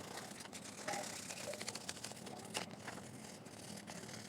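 800-grit sandpaper rubbed by hand over a plastic part of a JBL Flip speaker: a quiet, scratchy rubbing with scattered small clicks.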